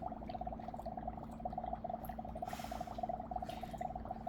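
Dry ice bubbling and sputtering in juice, a rapid steady gurgle of gas bubbles as it sublimates, with a brief hiss a little past halfway.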